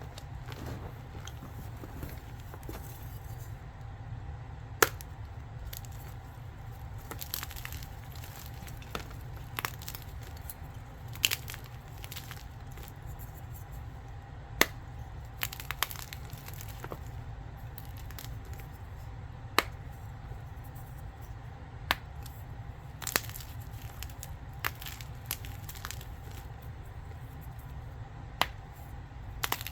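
Blocks of gym chalk being crushed close to the microphone: soft crumbling crunches broken by about a dozen sharp, irregularly spaced cracks as pieces snap.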